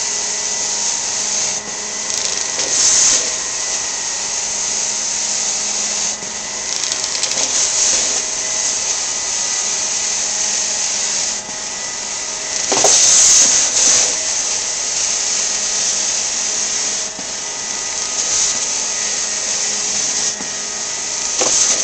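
Hot-water extraction carpet-cleaning wand spraying hot water and sucking it back up: a loud, steady rushing hiss of suction with a faint steady whine underneath, rising and dipping every few seconds as the wand works the carpet.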